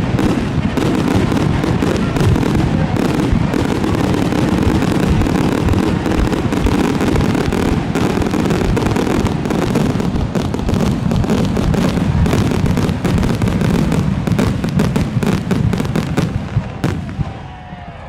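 Demolition derby cars' unmuffled engines running hard, a dense crackling and popping over a low rumble, with metal-on-metal hits, fading out near the end.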